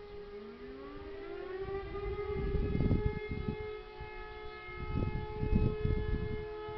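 E57 electromechanical civil-defence siren sounding a steady single tone, the "Probe" test signal. In the first couple of seconds a second siren winds up from a low pitch to join it. Low rumbling bursts come through around the middle and near the end.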